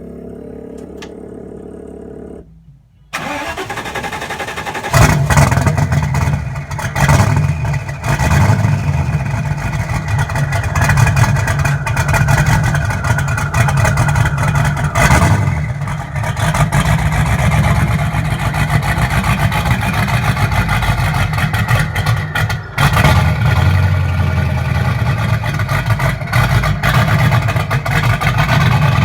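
A vehicle's engine is cranked and starts about five seconds in, then keeps running with the revs rising and falling, on its first run after a complete chassis rebuild.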